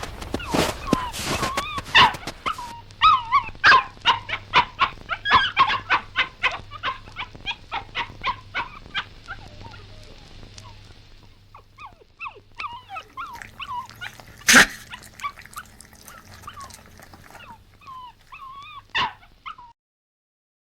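Puppy whimpering and yelping in a rapid series of short, high cries that thin out after about ten seconds, with two louder sharp cries or knocks near the end. It cuts off abruptly just before the end.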